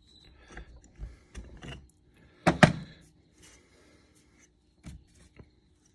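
Brake pads being worked out of a Girling-style disc brake caliper and handled, metal knocking and clicking against the caliper body. There are two sharp knocks about two and a half seconds in and a few lighter clicks near the end.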